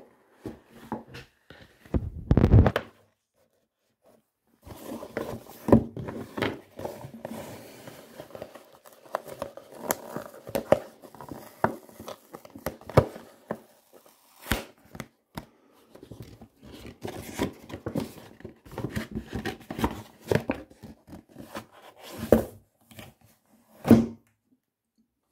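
Paper, card and cellophane-wrapped packaging handled by hand: irregular rustling and crinkling, with scattered taps and knocks as items are picked up and set down on a table. A louder rustle comes about two seconds in, and a sharp knock near the end.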